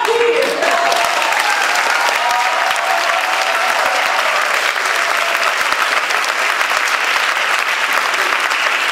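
Theatre audience applauding steadily, with a few voices cheering over the first few seconds.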